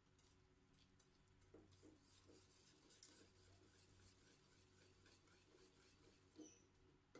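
Faint, quick scratching of a wire whisk stirring through rice grains in a stainless steel pot to break them up, with one sharper tap near the end.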